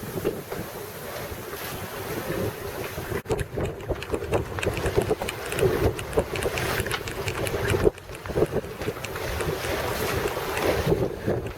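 Wind buffeting the microphone over water rushing and splashing along a sailboat's hull in a swell. The sound drops out abruptly twice and picks up again.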